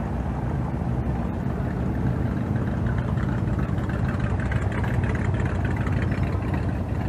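Steady low rumble of an idling vehicle engine.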